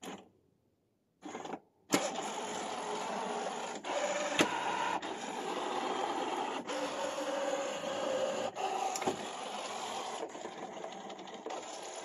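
SUPRA VCS-4093 robot vacuum running: a couple of short starts in the first two seconds, then the suction fan and brushes run steadily as it moves over the floor, with a few sharp clicks.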